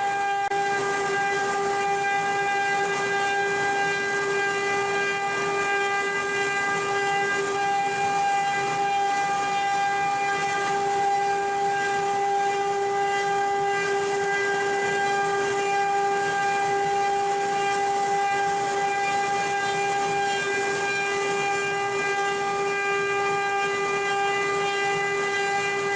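Spindle of a 4-axis CNC wood-carving machine running with a steady, high whine over a hiss.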